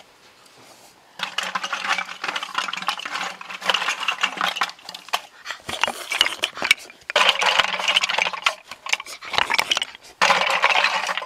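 Cooked snail shells clattering and rattling against each other as they are tipped out of a clay pot onto a banana leaf. It starts about a second in and comes in three spells of dense clicking.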